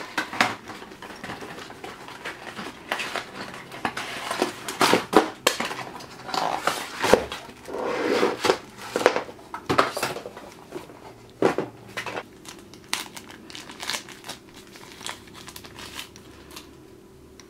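Plastic bags crinkling and rustling in irregular bursts as a charger and its cables are unpacked from their small cardboard box, with sharp handling clicks and knocks. The handling is busiest for the first twelve seconds or so and thins out near the end.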